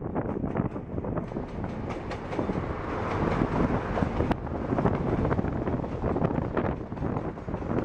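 Two KiwiRail DC class diesel-electric locomotives passing close by at the head of a milk train, followed by stainless steel milk tank wagons. A steady rail rumble runs under many short knocks and clatters from the wheels on the track.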